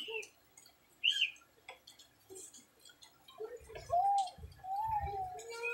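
A bird chirping, then giving several short arching calls in the second half, with a few soft low thuds.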